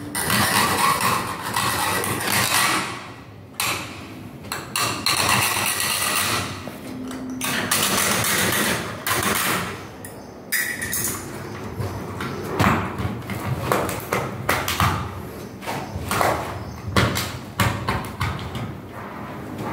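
A hand-held hacksaw blade sawing through an aluminium LED profile to cut it to length: stretches of rough scraping strokes with short pauses and a few clicks and knocks between them.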